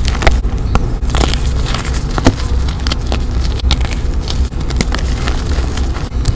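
Reformed gym chalk being crushed and crumbled between bare fingers: a dense run of irregular, crisp crunches and crackles as the blocks break into powder, over a steady low rumble.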